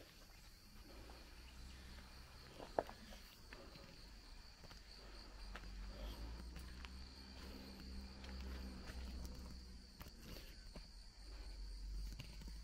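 Insects shrilling steadily on one high note, with low rumbling footsteps and a single sharp click about three seconds in.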